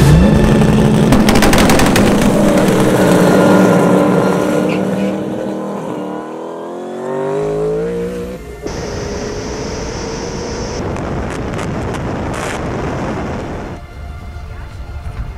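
Ford GT's V8 under full-throttle acceleration, its note climbing steeply and dropping back at each upshift before climbing again. After about eight and a half seconds the sound cuts abruptly to a steadier rushing noise that fades a little near the end.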